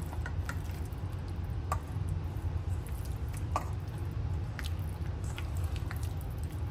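Paneer pieces being tossed and turned in a thick tandoori marinade, with soft wet squishing and a few light clicks against the bowl, over a steady low hum.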